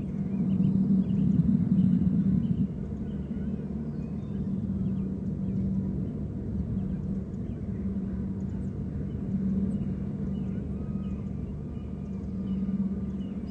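Bald eagles calling in rapid, short, high chirps over a steady low drone.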